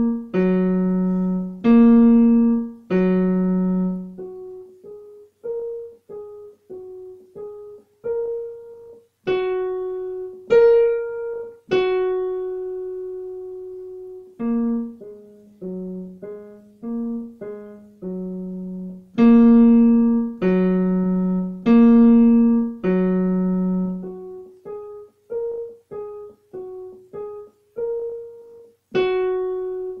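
Digital piano playing a simple beginner piece. Groups of loud, low chords struck about once a second alternate with quicker, softer single notes, and each note fades after it is struck.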